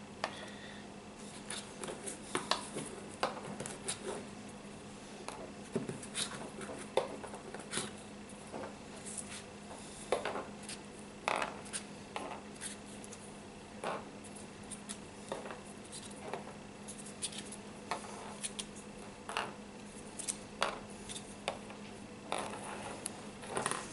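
Hard plastic slotted net cups clicking and tapping as they are handled and set down on a wooden table, irregular light clicks every second or so. A steady low hum runs underneath.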